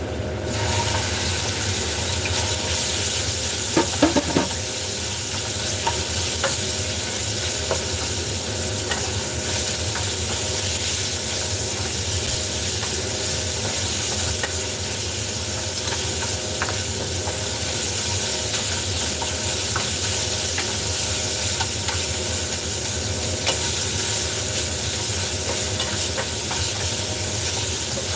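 Food sizzling hard in a hot frying pan on a gas stove, starting as it is tipped in from a bowl and carrying on steadily while it is stirred with a wooden spatula, which knocks against the pan a few times about four seconds in. A steady low hum runs underneath.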